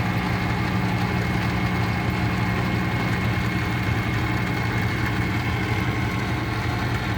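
Myford Super 7 metal lathe running under power feed, a steady even hum of motor and gearing with a faint high whine; it runs really smooth and quiet.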